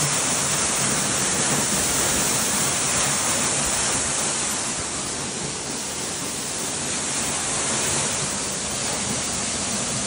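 Waterfall pouring, a steady rushing of falling water that eases off slightly around the middle.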